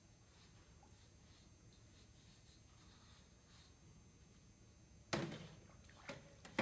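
Faint rubbing as a hand twists down the chocolate fountain's auger screw, wiping chocolate off it. About five seconds in comes a sharp knock as the auger is brought down against the steel pan, followed by a couple of lighter knocks.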